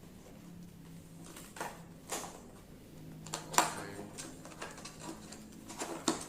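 Paper and cardboard packaging being handled: a few rustles and light knocks, the loudest about three and a half seconds in, over a faint steady hum.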